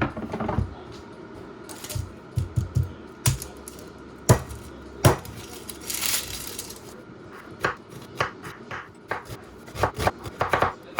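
Kitchen clatter during cooking: irregular sharp knocks and clicks of utensils, dishes and a chopping board being handled, with a short hiss about six seconds in.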